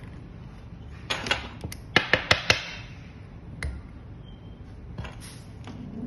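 Hard plastic parts of a waterproof fiber-optic connector clicking as they are fitted together by hand: a short rattle of clicks about a second in, then four sharp clicks in quick succession about two seconds in, and a single click later.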